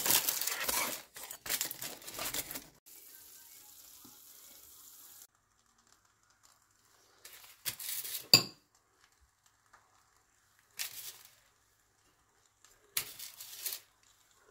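Pizza cutter wheel crunching through a baked pizza's crust on aluminium foil, a crackling scrape for about three seconds. Later come a few brief handling noises and one sharp click.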